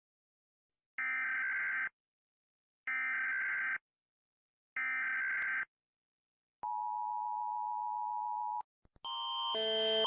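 US Emergency Alert System alert: three identical screechy SAME header data bursts about a second apart, then a steady attention tone for about two seconds that cuts off abruptly. Near the end a louder alarm with alternating pitches starts and swells: the Canadian Alert Ready attention signal.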